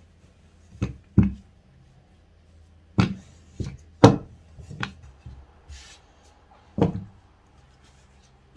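Wooden rolling pin knocking and thudding against a floured silicone baking mat while pastry dough is rolled out thin: about eight separate knocks, unevenly spaced, with quiet between them.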